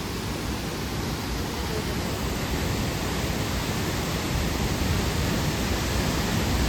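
Steady rush of waterfall water pouring through a narrow gorge, an even roar with no breaks.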